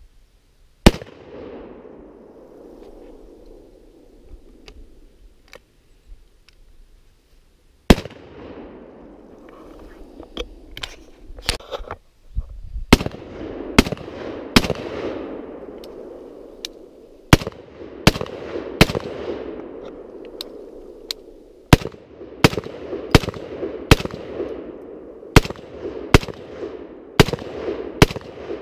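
Gunshots: two single shots several seconds apart, then a string of about twenty quick shots from an AR-15 semi-automatic rifle in groups of two to five, about half a second apart. Each shot leaves a long rolling echo.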